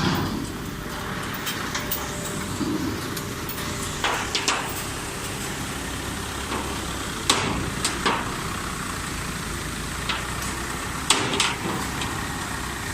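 Mini round baler running: a steady machine noise broken by sharp metallic knocks, which come in pairs every three to four seconds.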